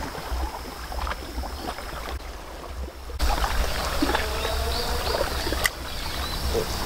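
Sea water lapping against a rocky shore, with wind rumbling on the microphone; it all grows louder about three seconds in.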